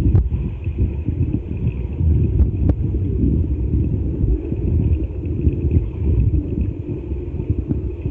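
Underwater noise in a swimming pool, picked up by a submerged camera: a steady low churning rumble with a faint hiss above it and a couple of sharp clicks.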